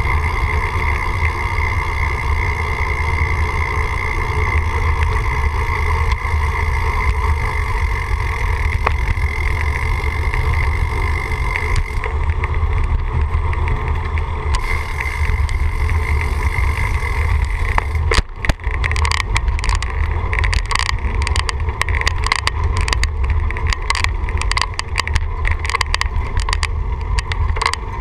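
A vehicle being ridden, heard from on board: a steady low rumble with a steady whine above it. From about two-thirds of the way in, rapid crackles and buffets join it.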